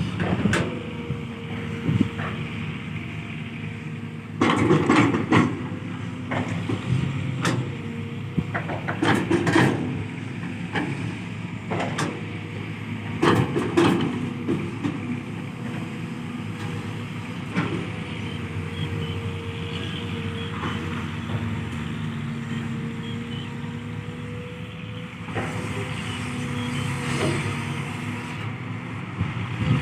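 Kobelco SK210-8 long-reach excavator working: its diesel engine runs steadily with a held whine over it, and irregular sharp clanks and knocks break through, the loudest a few seconds in, around a third of the way and around halfway.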